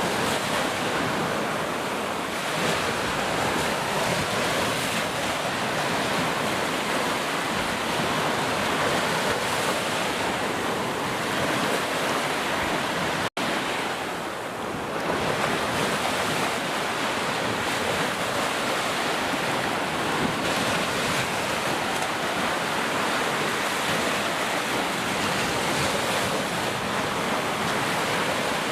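Heavy rain pouring steadily, a dense even hiss. It cuts out completely for an instant about halfway through, then resumes.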